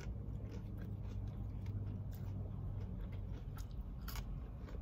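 Close-up chewing and biting of Wendy's chicken nuggets, with scattered small mouth clicks over a low steady hum.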